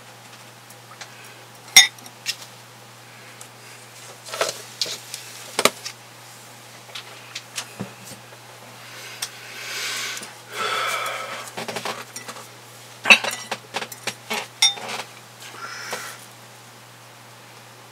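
Metal teaspoon clinking against a glass mug of tea as sugar is spooned in and stirred, in scattered taps and clinks. A longer, noisier sound of a couple of seconds comes near the middle.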